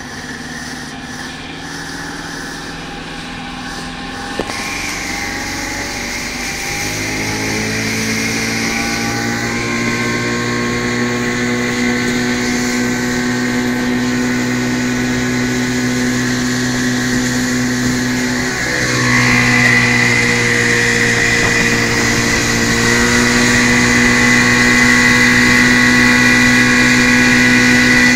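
Vintage OMC outboard motor accelerating, its pitch climbing over a few seconds, then running steadily at speed. About two-thirds of the way in it dips briefly and comes back slightly louder. Rushing water and wind run underneath.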